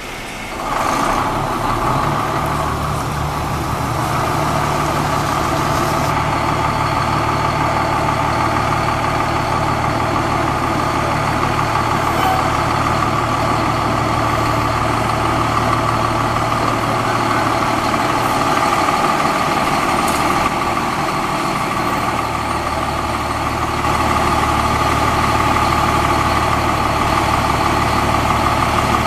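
Diesel engine of a 2001 E-One Cyclone II fire engine idling steadily after coming up about a second in. It grows louder near the end as the engine pulls forward out of the bay.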